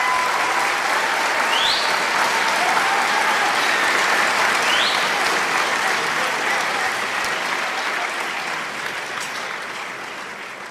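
A crowd applauding and cheering, with two short rising whistles, one about two seconds in and one about five seconds in. The applause fades out over the last few seconds.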